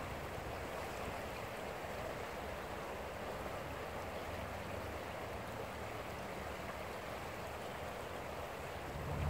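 Steady rushing of a fast-flowing river in flood, its brown current swirling past a submerged tree with ice floating in it.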